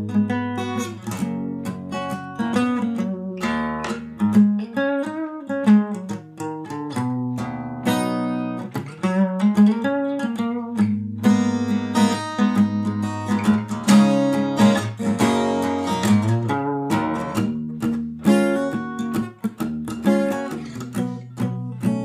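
Background music on acoustic guitar, a steady run of plucked and strummed notes.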